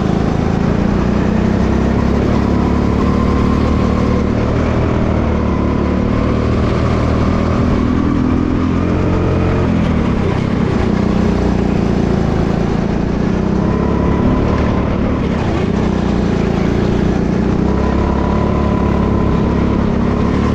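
Racing kart engine running hard, heard from the driver's seat. Its pitch drops and climbs again a few times as the kart slows for corners and accelerates out.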